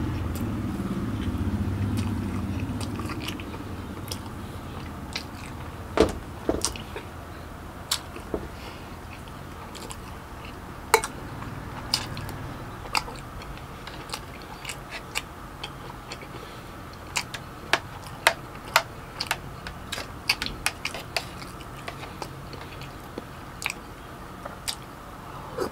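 Close-miked chewing and biting of food, with many short, sharp wet mouth clicks and smacks at irregular intervals.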